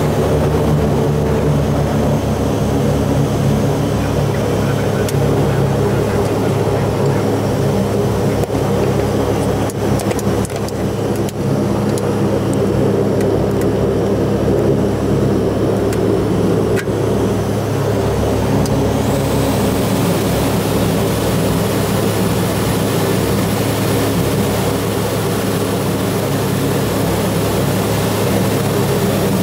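Saab 340's twin General Electric CT7 turboprop engines running on the ground, heard inside the cockpit as a steady drone with several steady propeller tones. A few short clicks come around the middle, and a faint high whine joins about two-thirds of the way in.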